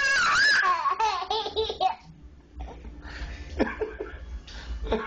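A baby squealing and laughing in high-pitched, gliding bursts for about two seconds, then a short lull and a few softer sounds.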